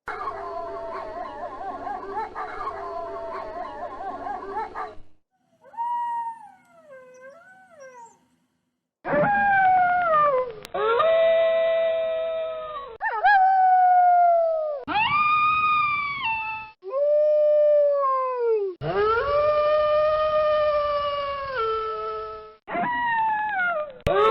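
Wolves howling: a chorus of several overlapping, wavering howls for about five seconds, then a faint howl, then a string of long single howls, each sliding down in pitch and holding. The howls are spliced one after another with abrupt cuts between them.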